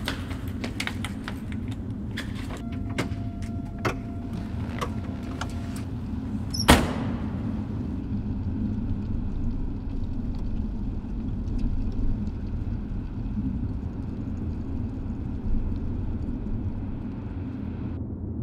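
A car door slams shut once, a little under seven seconds in, after a few light clicks and a faint steady tone. A steady low car rumble runs throughout as the car drives through a parking garage.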